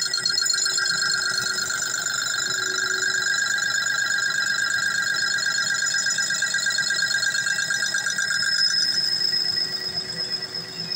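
Metal lathe turning a spinning metal disc, the cutting tool on the workpiece giving a loud, steady, high-pitched ringing squeal that pulses rapidly and evenly. It grows quieter near the end.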